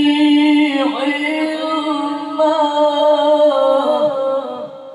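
Male Quran reciter (qari) chanting in the melodic tilawah style, amplified through a handheld microphone. He draws out one long, ornamented phrase of held and bending notes, which trails off near the end.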